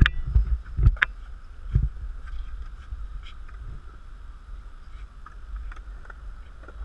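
Knocks and thumps of a small action camera being handled and set down on concrete, several in the first two seconds, then a steady low wind rumble on its microphone.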